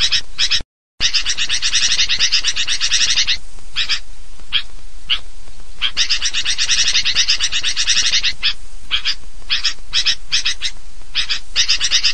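Recorded sooty-headed bulbul (kutilang) calls used as a bird-luring track: fast, noisy chattering, thinning to short separate calls between about 3 and 6 seconds in and again between about 8 and 11 seconds. The recording cuts to dead silence for a moment near the start.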